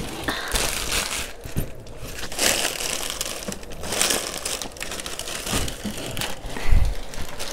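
Plastic packaging crinkling and rustling as it is handled, in irregular bursts, with a dull thump near the end.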